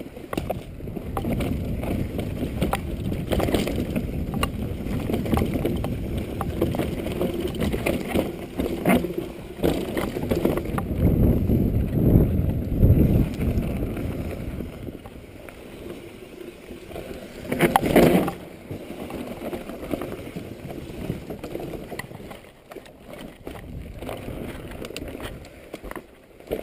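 Mountain bike riding down a dirt singletrack, heard through a GoPro: tyre rumble and a steady stream of rattles and knocks from the bike over roots and bumps, with wind noise on the microphone. A loud clatter comes about two-thirds of the way through.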